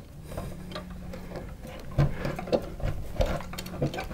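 Insulated copper wires being handled and pushed into a steel electrical box, with irregular small clicks and taps of wire against metal, starting about two seconds in, over a faint steady hum.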